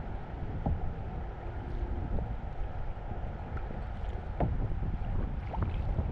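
Kayak paddles dipping into canal water, with a few small splashes and drips, over a steady rumble of wind on the microphone.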